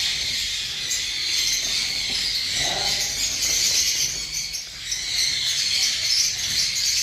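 A flock of caged Java sparrows chirping together: a dense, steady chatter of high calls.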